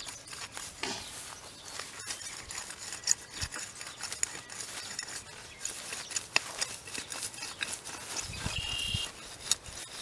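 Kwik Edge hand edger's blade scraping and crunching through dirt and mulch as it is pulled along a flower-bed edge, in a run of short scratchy strokes.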